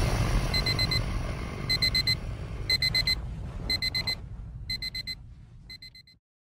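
Alarm clock sound effect beeping in groups of about four quick beeps, once a second. The beeps fade over a low rumble and stop about six seconds in.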